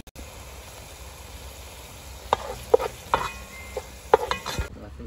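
A ladle stirring and basting in a metal pot of simmering braising sauce: a faint steady sizzle, then from about two seconds in a run of sharp knocks and clinks against the pot, a few of them ringing briefly.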